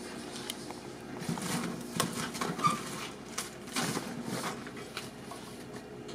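Packaging being handled: a cardboard shipping box and clear plastic lure boxes rustling, scraping and clicking in irregular bursts.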